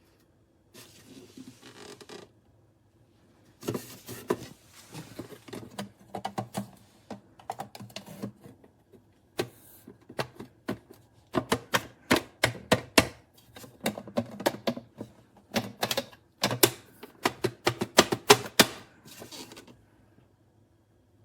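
Irregular clicks and knocks of hard plastic, as a plastic water-filter pitcher with its lid and filter is handled. The clicks come in quick, dense clusters in the second half.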